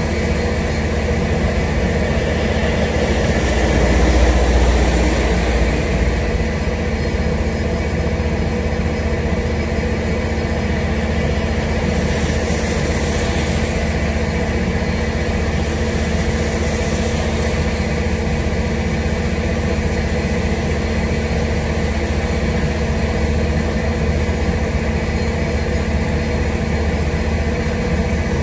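Heavy thunderstorm rain and wind heard through a window: a steady rushing noise over a constant low hum. A deeper rumble swells about four seconds in, and there are brief brighter hisses later, likely tyres on the wet road.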